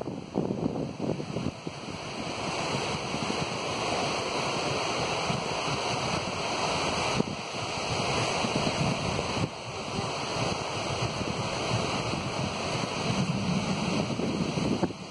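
Sea surf washing onto a sandy beach, with gusty wind buffeting the microphone.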